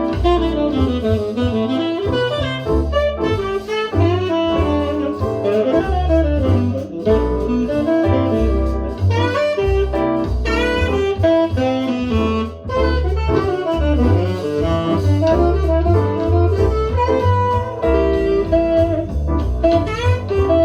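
Jazz music with a saxophone-like lead melody over a steady bass line, played back through a KEF iQ1 two-way bookshelf speaker for a listening test.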